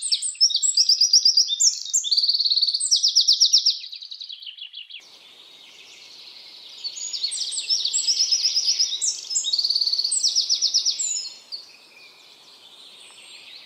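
A songbird sings long, rapid trilled phrases in two bouts, pausing for a few seconds between them. From about five seconds in, a faint steady hiss of background noise runs underneath.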